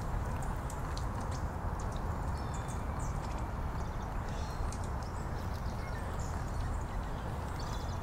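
Water pouring from a garden fountain spout and splattering in a steady patter, with short, high bird chirps scattered over it.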